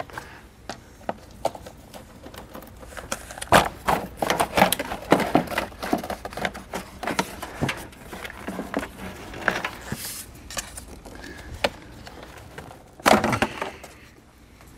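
Irregular clicks, knocks and rattles of plastic intake parts being worked loose and pulled off by hand, as an intake tube and air box come out of a car's engine bay, with a louder clatter near the end.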